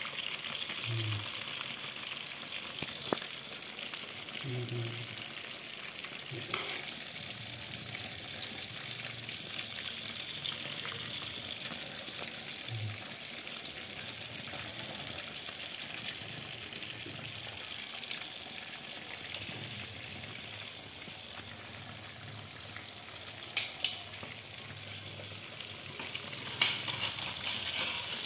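Flour- and breadcrumb-coated chicken pieces deep-frying in a wok of hot oil: a steady sizzle. A few sharp clicks of metal tongs against the pan come through it, the loudest around the last few seconds.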